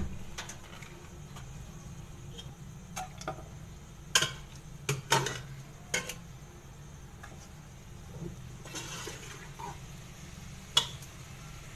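A metal spoon knocking and clinking against a karahi as cooked goat head meat is put in, about eight scattered sharp knocks, over a low steady hum.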